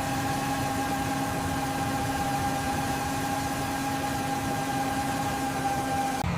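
A construction-machine engine running steadily at an unchanging pitch, with a constant whine over a rough low rumble. Just before the end it cuts off and a lower-pitched engine sound takes over.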